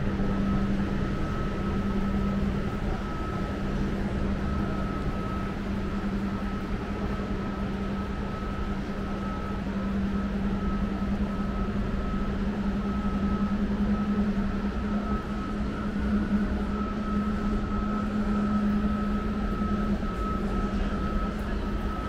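Steady mechanical hum: a low drone and a higher thin whine that keep the same pitch, over an even wash of city noise.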